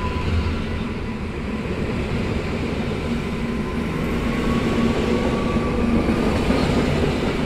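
Koleje Mazowieckie EN57AL electric multiple unit pulling away and accelerating past, its running noise growing louder. A whine rises slowly in pitch as it speeds up.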